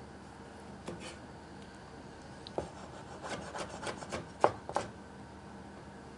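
Cleaver chopping tomato on a wooden cutting board. A few separate knocks come first, then from about three seconds in a quicker run of chops, with the last two the loudest.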